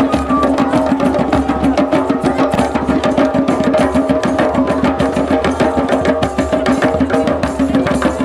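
Many hand drums (djembes) played together in a fast, steady rhythm in a drum circle, with a steady held note underneath the drumming.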